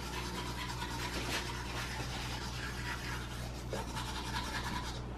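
Manual toothbrush scrubbing teeth, a continuous soft scratchy rubbing, over a steady low electrical hum.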